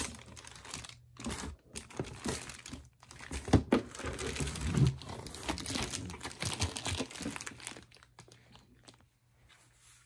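Clear plastic bags crinkling in irregular handfuls as plastic-wrapped hair-dryer parts and hose are handled and pulled from a box, dying away over the last couple of seconds.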